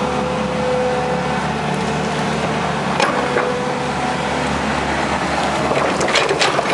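Hitachi EX120 excavator's diesel engine and hydraulics running steadily under load while it works a bucket of pond mud, with a steady whine that shifts slightly in pitch. There is a sharp knock about three seconds in and a burst of clanks and knocks near the end.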